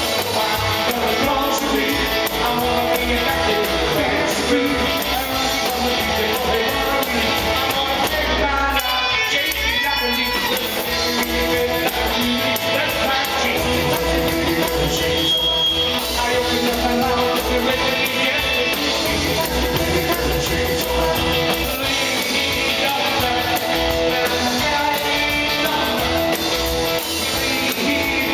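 Live rock and roll band playing: a male singer singing into a microphone over strummed acoustic guitar and drums keeping a steady beat.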